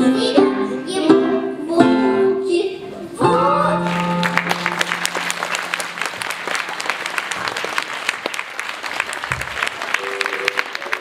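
A child singing over an instrumental accompaniment; the song ends about three seconds in on a held final note. Audience applause follows, and music starts again near the end.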